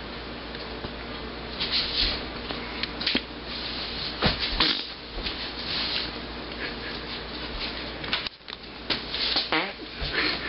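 Scattered rustling and handling noises with a few sharp knocks over a steady room hum.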